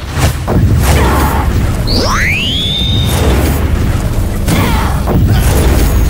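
Added action-film sound effects: booms and hit sounds over a steady deep bass bed, with a sharply rising whoosh about two seconds in that levels off into a high held tone.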